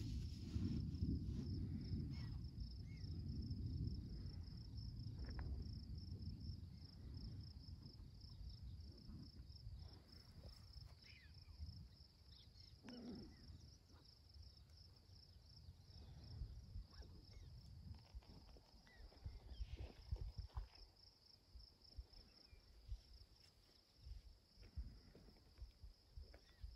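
A steady, high-pitched insect trill runs throughout, over low gusts of wind on the microphone that are strongest in the first few seconds. A few short, faint chirps sound here and there.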